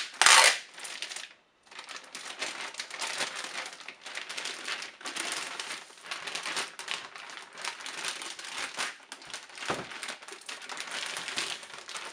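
Clear plastic bag crinkling and rustling as it is pulled off an oscilloscope and handled. There is a loud burst of crackling just after the start and a brief pause about a second and a half in, then steady crinkling.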